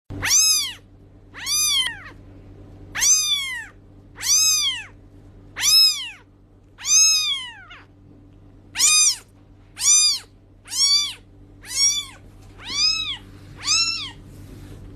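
Kitten meowing over and over, about a dozen short high-pitched meows roughly a second apart, each rising and then falling in pitch. A faint steady low hum runs underneath.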